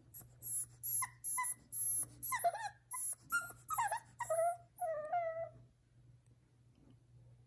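Boston Terrier puppy whining, a quick string of short, high whimpers and squeaks with wavering, bending pitch that runs for about five seconds and then stops. The puppy is whining for attention.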